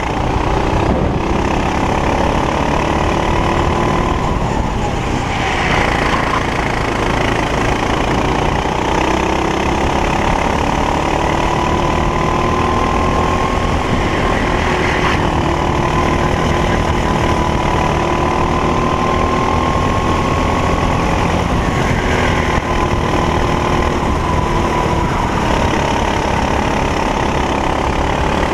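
Racing kart engine running hard through a lap. The engine note climbs slowly on the straights and drops back under braking several times, with a steady noise of wind and tyres underneath.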